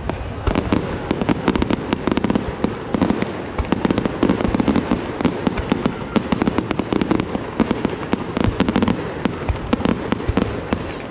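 Aerial fireworks fired as a starmine, a rapid-fire barrage: shells bursting in quick, uneven succession, many sharp bangs a second over a continuous rumble.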